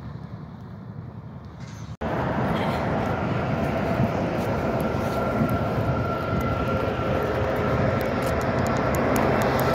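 After a cut about two seconds in, a loud steady drone with a held whine over it: the diesel locomotives of an approaching Union Pacific freight train running. Before the cut there is only a quieter steady background.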